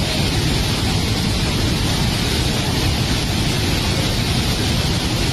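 Loud, steady rushing noise of a storm, with no separate events in it.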